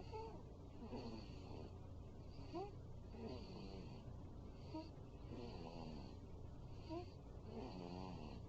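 A sleeping five-week-old snoring softly in quick, even breaths, about one a second. Many breaths carry a small squeaky whistle that rises in pitch.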